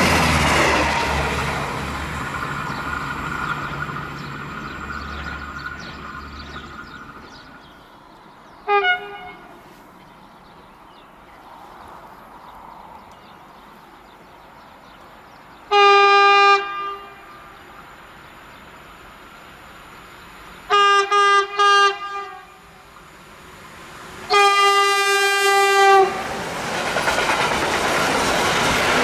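Freight train locomotive sounding its horn as it approaches: one short blast, one of about a second, three quick toots, then a longer blast of about a second and a half. Near the end the freight train's wagons pass close by, rumbling on the rails. The opening seconds hold the fading rumble of a departing passenger train.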